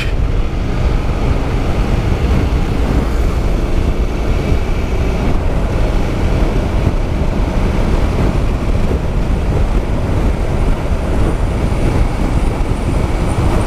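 Honda NC750X motorcycle riding at highway speed: heavy wind rush on the microphone over the steady drone of its parallel-twin engine.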